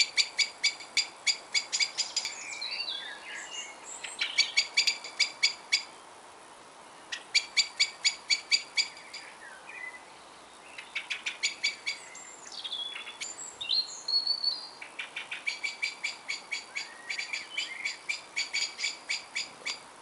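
A songbird singing: runs of rapid, sharp repeated notes, about six a second, each run lasting one to two seconds, with short twittering phrases in between.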